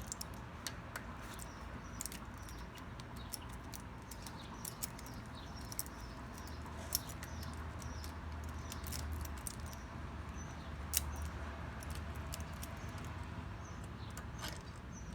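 Scattered light clicks, taps and rattles of handling, over a steady background and a low hum in the middle stretch.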